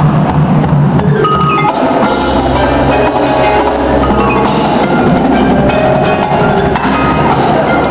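Indoor percussion ensemble playing, with marimbas and other mallet keyboards over marching drums and cymbals. A deep sustained low part comes in about two seconds in.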